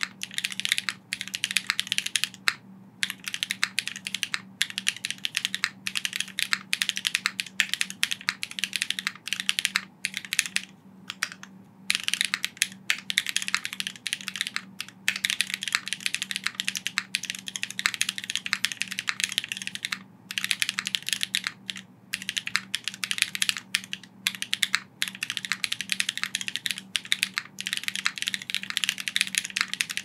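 Fast typing on an Angle 80 custom mechanical keyboard: a dense, continuous run of key clacks, broken by a few short pauses.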